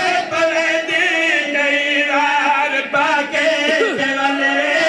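A man chanting a mournful religious lament in Punjabi, in long, wavering sung notes.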